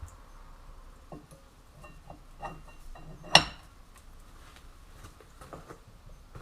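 Metal tools and car parts clinking and knocking during hand work, with one loud ringing metallic clang about halfway through.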